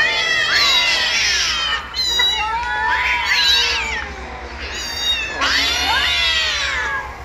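Several cats meowing and yowling, with long overlapping calls that rise and fall in pitch and a brief lull midway.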